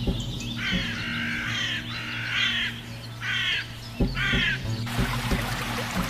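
Several harsh bird calls in a row over background music with a low steady drone and a beat.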